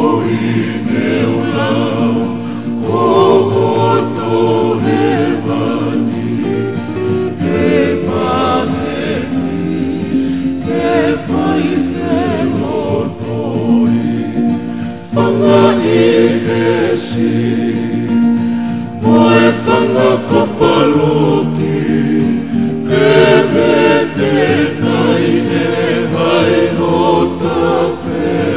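A Tongan kava-club song, a group of voices singing together in harmony in long sung phrases.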